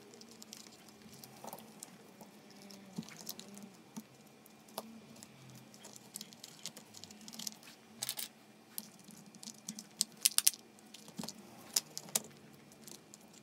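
Plastic housing parts and wiring of a disassembled cordless impact driver being handled and fitted together: scattered light clicks and rattles, with a quick run of sharper clicks about three-quarters of the way through.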